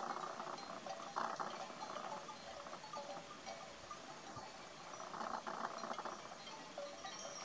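Sheep or goat bells of a grazing flock clinking and ringing at many different pitches, with a few louder, rougher sounds about a second in and again around five seconds in.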